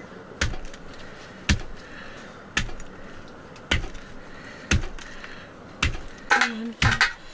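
Goat ribs being chopped with a heavy blade on a wooden block: seven sharp, even strokes, a little over one a second.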